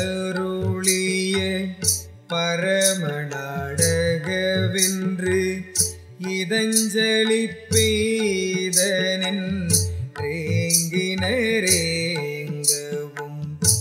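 Tamil devotional music in Carnatic style: a steady sustained drone with a melody line moving over it, and regular short, bright percussion strikes.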